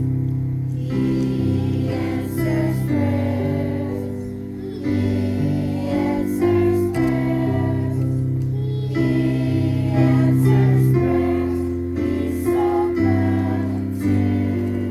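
A church hymn sung with instrumental accompaniment of held chords that change every second or so.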